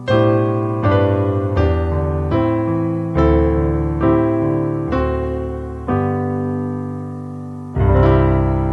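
Electric keyboard playing a hymn: slow chords struck about once a second, each fading away, then a longer held chord and a loud new chord near the end.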